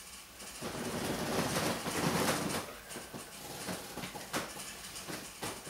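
Bedding rustling and the bed shifting as a person sits up in bed, loudest about two seconds in, then quieter with a few soft clicks and knocks near the end.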